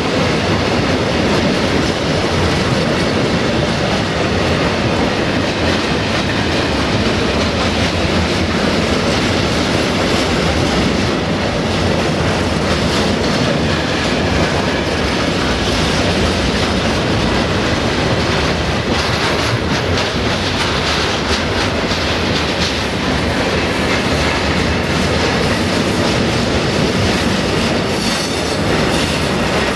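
Freight train tank wagons rolling past close by: steady loud noise of steel wheels on the rails, with sharp clacks as wheels cross rail joints, more of them in the second half.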